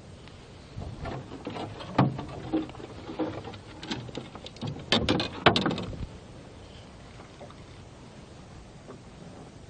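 Irregular knocking and clattering in a small rowboat, with the sharpest knocks about two seconds in and around five seconds in; it dies away after about six seconds.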